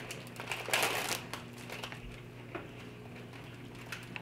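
Crinkling of a plastic Oreo cookie package being handled, loudest in a crackly stretch about a second in, followed by a few faint clicks.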